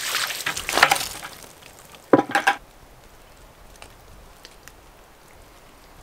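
Water poured from a plastic bucket splashing onto flat sawn white oak planks for about the first second, then a short sharp sound about two seconds in, followed by a few faint drips.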